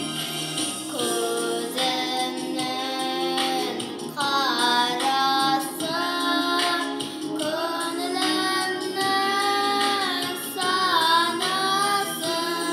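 A young girl singing solo over instrumental accompaniment. Her voice comes in about a second in and holds long, wavering notes.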